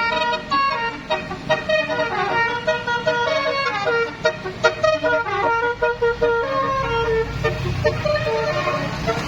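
Telolet multi-tone bus horn playing a quick tune of short, stepping notes, with a bus engine's low rumble growing near the end as the bus comes through.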